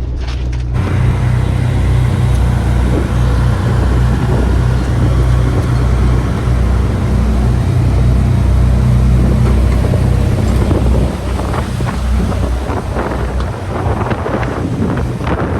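Boat engine running with a steady low drone, with wind buffeting the microphone; about two-thirds of the way through the drone eases and gusty wind and water noise take over.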